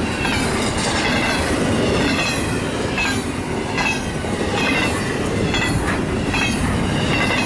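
Freight cars of a fast CSX freight train rolling past at speed: a steady, loud rush of steel wheels on rail, with sharp clicks every half second to a second as the wheels cross rail joints.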